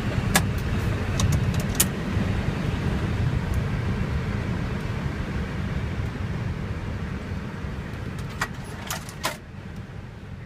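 Steady low rumble inside an Airbus A320 cockpit as the airliner rolls on the ground after landing, fading slowly. A few sharp clicks, two in the first two seconds and several close together near the end.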